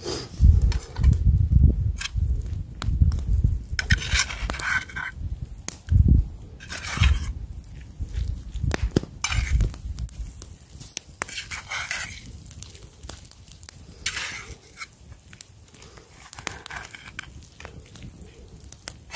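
A metal spoon scraping and clinking in a pan of food as it is stirred, over a wood campfire crackling, with low rumbling in the first half.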